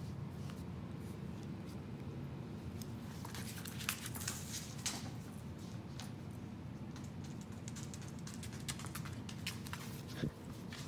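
Scattered light clicks and taps from a corgi puppy moving about and playing with a tennis ball on a hard floor, over a low steady room hum, with a single soft thump near the end.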